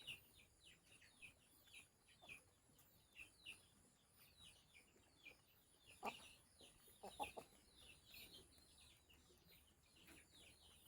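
Chickens calling faintly: a steady stream of short, high, falling peeps, with a few lower clucks about six and seven seconds in.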